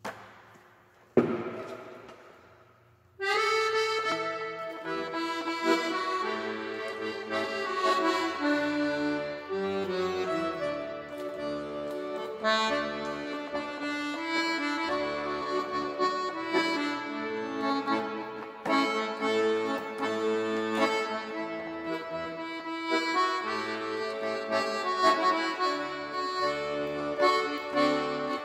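Red Todeschini piano accordion playing a melody on the right-hand keys over a left-hand bass-and-chord accompaniment, starting about three seconds in. Before the playing starts there is a single sharp knock that rings off briefly.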